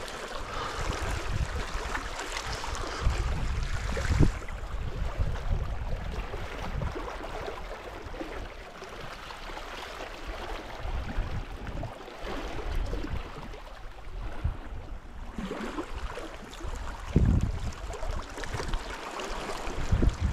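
Small sea waves lapping and sloshing against the shoreline rocks, with wind rumbling on the microphone and a few louder low thuds.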